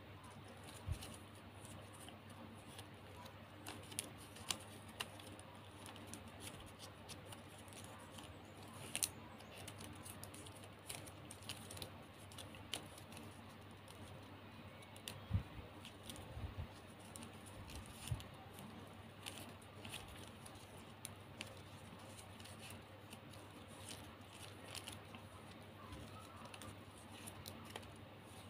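Shiny plastic gift ribbon crinkling and rustling as fingers fold and weave the strips, with scattered small clicks and ticks at irregular moments, over a faint steady low hum.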